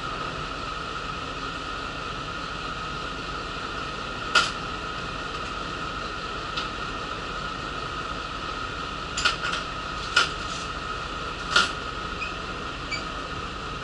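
Steady hum of a route bus's cabin with its engine and air-conditioning running. Short sharp clinks and knocks of rattling fittings come through once about four seconds in and several times near the end.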